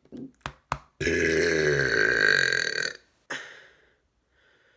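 A man's long, loud burp of about two seconds, starting about a second in, with two short mouth clicks just before it.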